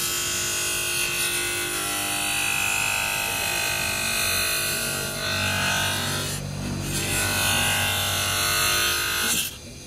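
Bench grinder running with a thin disc on its spindle, cutting into a clear ribbed plastic strip: a steady motor whine under a harsh cutting hiss. It eases briefly past the middle and stops abruptly near the end.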